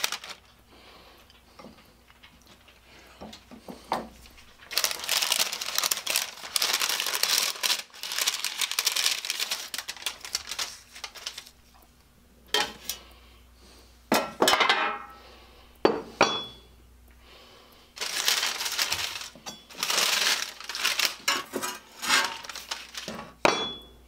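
Crinkling of the covering sheet and the shrunken plastic bags as they are handled, coming in bursts, mixed with clinks and knocks of a thin metal baking tray; a few sharp knocks about halfway through.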